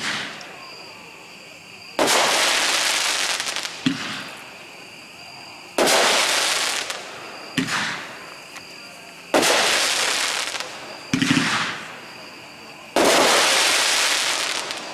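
Boomwow Four Elements consumer firework cake firing shot after shot. Each shot is a sharp launch thump, then about two seconds later a loud burst high overhead that fades out over a second or more. Four such bursts come roughly every three and a half seconds.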